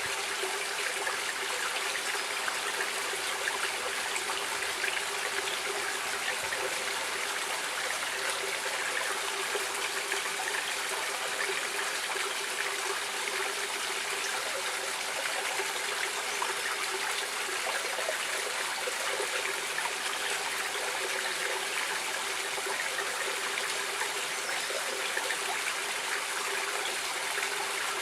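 Stream water flowing and trickling steadily, an even splashing rush with no change.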